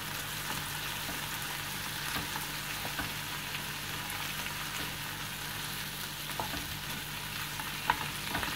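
Butter sizzling under chopped tomatoes, capsicum, peas and mashed potato frying in a pan, with a wooden spatula stirring and scraping against the pan in scattered light knocks. A steady low hum lies underneath.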